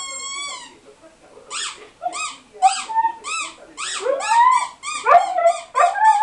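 A squeaky toy squeezed over and over, about two squeaks a second, after a long held squeak that ends under a second in. From about four seconds in a dog whines and howls along, crying in response to the toy's sound.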